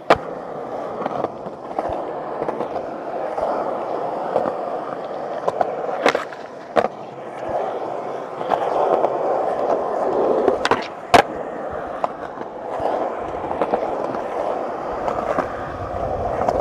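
Skateboard wheels rolling steadily over rough, cracked old tennis-court asphalt, with a few sharp clacks of the board hitting the ground: one right at the start, two a little after 6 s, and the loudest around 11 s.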